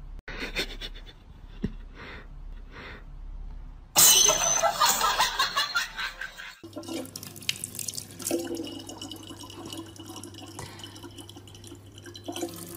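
A loud, sudden noisy outburst about four seconds in, lasting two to three seconds. Then a kitchen tap runs a thin stream of water into a plastic bottle, a steady hiss with a low hum under it.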